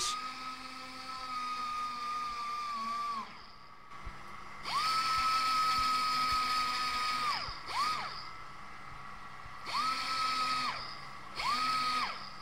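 Small handheld rotary polishing tool with a small mop, polishing the inside edges of a copper-plated brass radiator shell before its second copper coat. Its high-pitched whine winds up and down: a long run that stops about three seconds in, another from about five to seven seconds, then three short bursts near the end.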